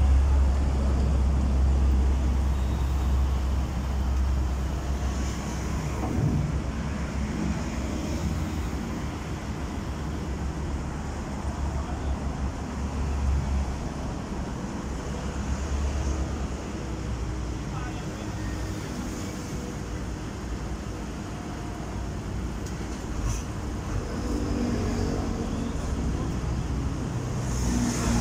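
Sany SY215C crawler excavator's diesel engine running under load with a deep, steady rumble as the machine works its boom and tracks to come down off a lowboy trailer; loudest in the first half, then easing.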